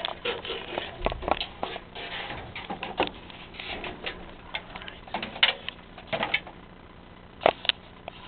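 Irregular clicks, taps and rustling in a small room, with a dull thump about a second in and two sharp clicks near the end.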